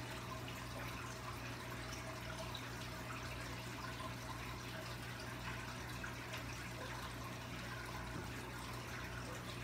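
Steady low hum with a faint even hiss: room tone, with no distinct sounds standing out.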